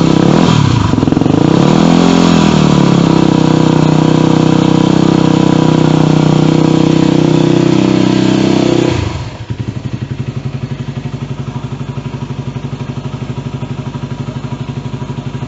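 Yamaha WR250R's 250 cc single-cylinder four-stroke engine through an FMF aftermarket muffler, blipped up and down a few times, then held at a steady raised rev. About nine seconds in it drops back to a lower, pulsing idle.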